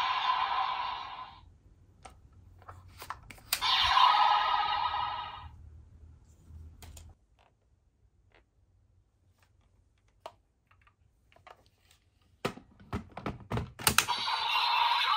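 DX EX Gotcha Saber toy sword (Kamen Rider Gotchard) playing two short bursts of sound effects through its small built-in speaker, with sharp plastic clicks and clacks as it is handled in between. It goes nearly silent for a few seconds in the middle, then a flurry of clicks leads into another burst of toy sound near the end.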